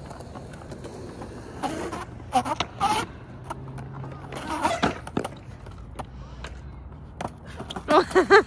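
Skateboard wheels rolling and scrubbing on smooth concrete as the rider pivots the board back and forth in 180 power slides, with scattered clacks and scuffs. Near the end the board shoots out from under him, followed by a short burst of laughter.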